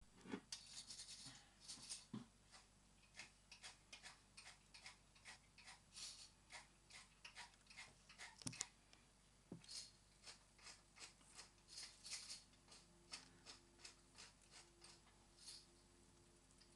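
Silk moth caterpillar chewing leaves: faint, irregular crunchy clicks, a few a second, with a couple of louder clicks about halfway through.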